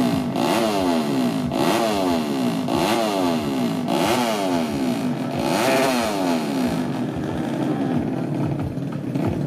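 Tuned 130cc underbone drag motorcycle revving hard and repeatedly, its pitch climbing and dropping about once a second, as it is blipped at the drag start line; the revs settle to a more even run after about seven seconds.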